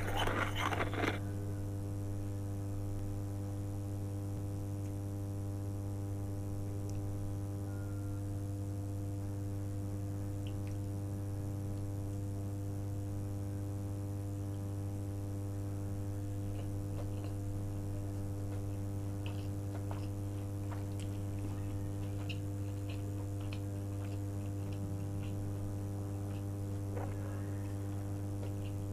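Steady low hum with a ladder of higher overtones, unwanted background noise that spoils the recording. A brief loud noise sounds at the very start, and faint scattered clicks and ticks sit over the hum in the second half.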